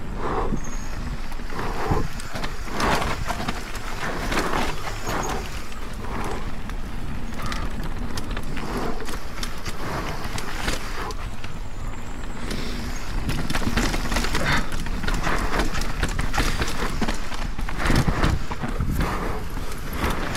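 Propain Spindrift 29er mountain bike descending a rough natural forest trail: tyres rumbling over dirt and roots, with a steady run of clattering and rattling from the bike as it hits bumps.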